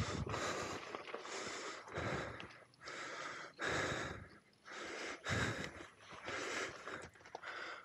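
Heavy breathing close to the microphone, a rider exerting himself off-road: a steady run of noisy in- and out-breaths roughly every half second to a second.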